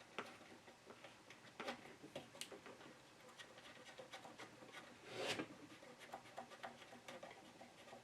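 Faint, irregular small clicks and ticks of an amplifier's speaker-output screw terminals being tightened down on bare speaker wires, with one louder scraping rustle about five seconds in.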